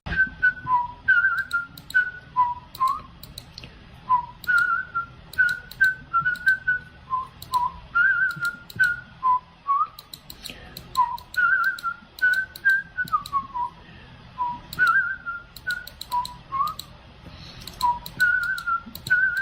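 A whistled tune of short notes hopping between two pitches, some sliding up or down, over sharp clicks scattered throughout.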